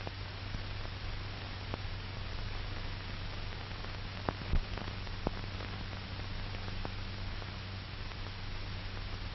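Steady hiss and low hum of an old 1940s film soundtrack, with a few faint scattered clicks, the loudest two about four to four and a half seconds in.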